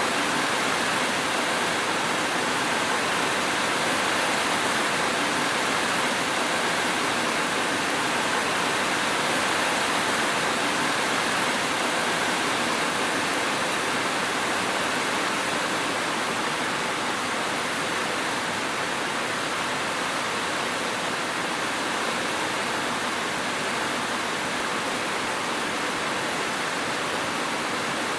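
Steady, heavy rain making an even hiss, with no thunder or separate drops standing out.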